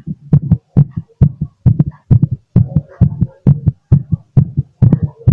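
A human heart heard through a stethoscope, beating fast, about two beats a second, each beat a paired lub-dub thump: a rapid, hard heartbeat that the owner puts down to drinking a lot of coffee.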